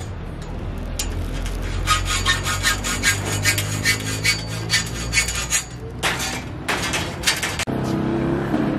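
Hacksaw cutting through a metal tube, in quick back-and-forth scraping strokes about two or three a second, then two longer strokes before it stops.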